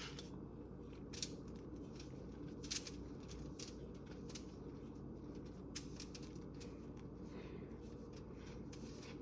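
Knife spreading butter across a slice of bread: a run of short, irregular scraping strokes.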